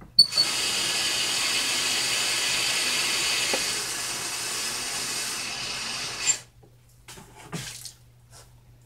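Water from a utility-sink faucet running hard into a plastic five-gallon bucket held under it, a steady rush with a faint whistle in it, topping the bucket up to three gallons. The tap comes on just after the start and is shut off about six seconds in.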